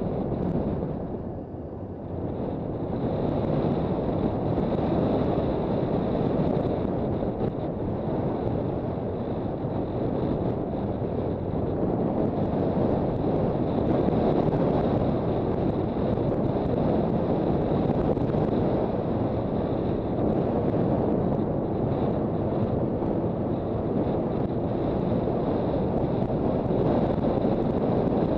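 Wind rushing over the microphone of a Honda CB400 Super Bol d'Or being ridden at speed, with road and engine noise mixed in. It eases briefly about a second and a half in, then runs on steadily.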